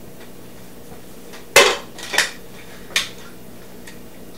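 Kitchenware knocking against the ceramic crock of a slow cooker as sauce is poured in and stirred: about five sharp clinks, the loudest about a second and a half in.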